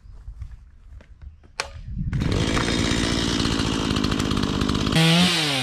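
Stihl MiniBoss two-stroke chainsaw starting up about two seconds in and running steadily. Near the end it revs higher, then its pitch falls as the engine slows.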